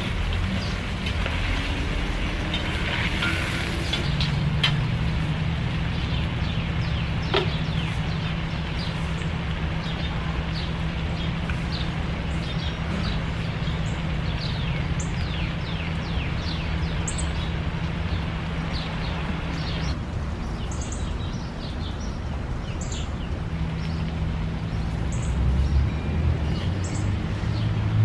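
Outdoor ambience: a steady low rumble and hum, with birds chirping in many short falling calls from about eight seconds in and higher short calls later on.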